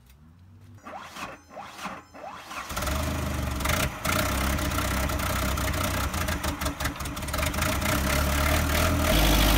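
A few light knocks, then a forklift's engine comes in about three seconds in and runs steadily, growing louder near the end.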